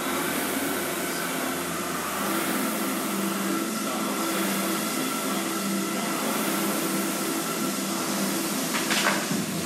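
Concept2 rowing machine's air-resistance flywheel whirring under hard rowing: a steady rushing fan noise, with a sharp clack near the end.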